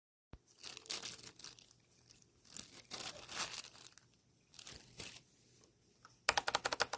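Packaging being handled: crinkling and tearing in several irregular bursts, then a quick rattling run of rapid clicks near the end.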